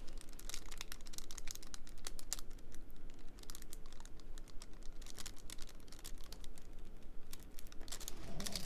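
A diamond painting pen tapping drills onto the sticky canvas, making a quick, irregular run of light clicks and ticks, like typing, with some crinkling.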